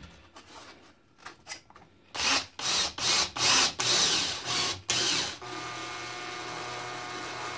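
Cordless drill driving a 3D-printed screw anchor with a washer into XPS foam. A series of short, loud bursts comes first, then the drill runs with a steady whine through the last couple of seconds.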